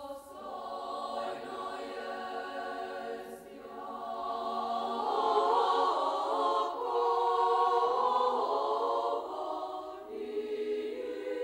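Orthodox church choir singing a liturgical chant in sustained chords. It swells about four seconds in, is loudest for several seconds, and eases near the end.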